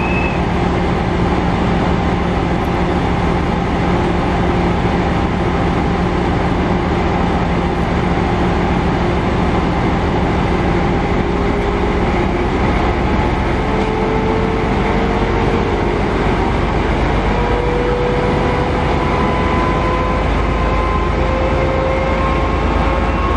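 FS D445 diesel-electric locomotive's engine running loudly, then, from about halfway, climbing slowly in pitch as it is throttled up to pull the heritage train away.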